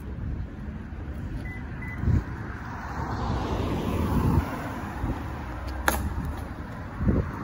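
A car driving past on the road, its tyre and engine noise swelling and then fading as it goes by. Underneath is a steady low rumble of wind on the microphone, with a few heavier thumps and one sharp click near the end.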